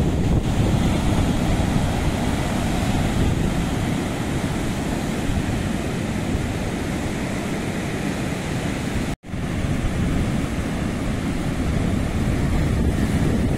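Ocean surf breaking steadily on a sandy beach, with wind buffeting the microphone. The sound drops out for an instant about nine seconds in.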